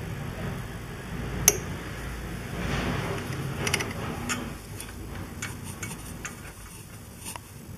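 Scattered small clicks and rubbing from a new spin-on oil filter being turned onto a motorcycle engine by hand. One sharp click about one and a half seconds in is the loudest.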